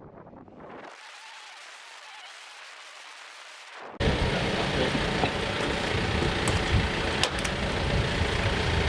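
Faint hiss, then about four seconds in a Toyota forklift's engine comes in loud and steady while it carries a steel boat wing, with a couple of sharp clicks.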